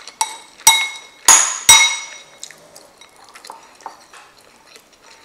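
Metal spoon knocking and scraping against a ceramic bowl: three sharp clinks that ring in the first two seconds, then quieter small scrapes and clicks.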